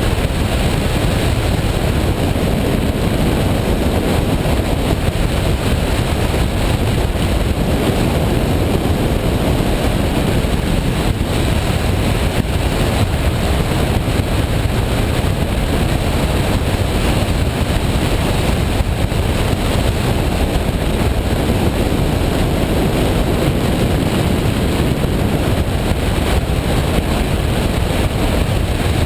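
Washing machine running, a loud, steady rumbling rush of noise with no breaks.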